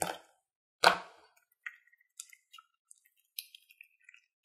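Thick crunchy slime with beads being poked and then stretched by hand: two loud wet pops near the start, about a second apart, then a string of small crackles and clicks as it pulls apart.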